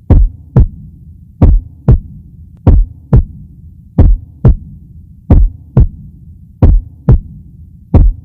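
Heartbeat sound effect: paired low thuds, lub-dub, about half a second apart, repeating about every 1.3 seconds over a steady low hum.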